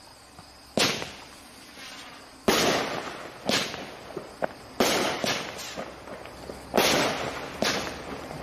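A T-Sky 'Piece of Work' 12-shot, 200-gram firework cake firing: about eight sharp bangs in irregular succession, roughly one a second, each fading off in a short tail.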